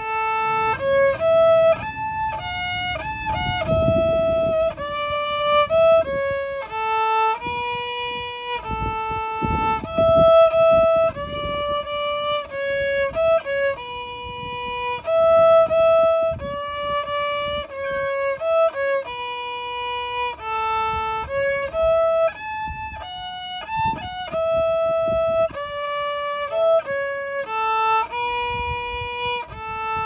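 Solo violin, bowed, playing a simple melody one note at a time, each note held about half a second to a second.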